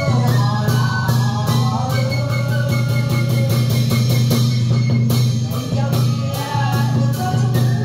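Traditional Vietnamese music accompanying a water puppet performance: a steady low held tone under shifting melodic lines, with percussion striking about three times a second.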